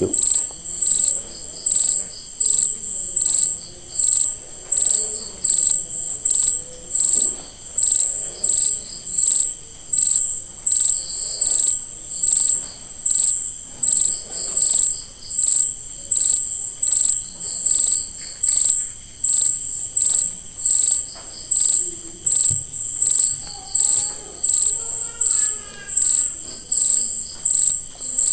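A cricket chirping loudly: a high chirp repeating evenly, a little more than once a second. Faint handling and rustling sounds run beneath it.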